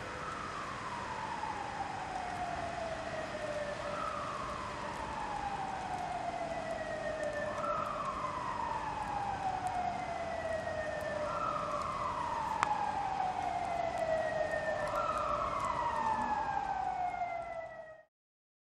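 A siren-like tone that jumps up and slides slowly down in pitch, repeating five times about every four seconds over a steady hiss; it cuts off suddenly near the end.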